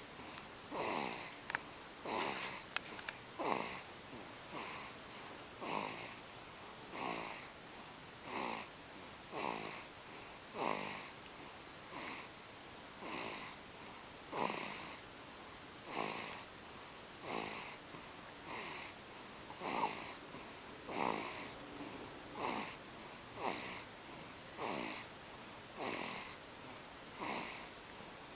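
A sleeping baby snoring in a steady rhythm, with one short snore a little more often than once a second.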